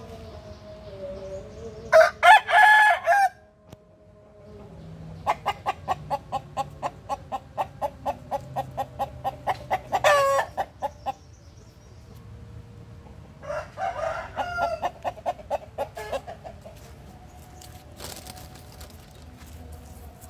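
Roosters crowing: a loud crow about two seconds in and another around fourteen seconds, with a long run of evenly spaced clucking calls, about three a second, between them.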